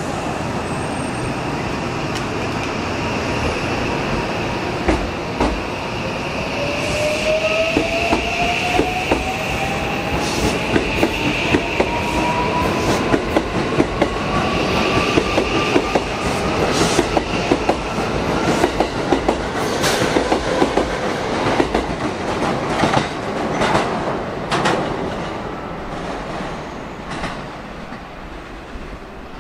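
JR West 323 series electric train pulling away from the platform and accelerating past: a motor whine rises steadily in pitch as it gathers speed, over wheels clicking on the rail joints more and more often. The sound fades near the end as the train leaves.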